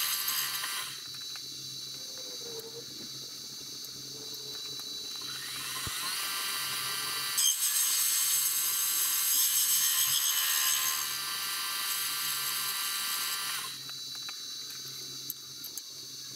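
Milling machine spindle turning a boring head that is opening out a hole in a plate, heard as a high-pitched motor whine. The whine rises in pitch about five and a half seconds in and cuts off a few seconds before the end, when the spindle stops.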